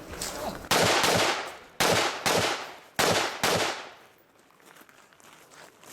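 Rifle shots fired in three quick pairs, six shots within about three seconds, each with a short echoing tail, then the firing stops.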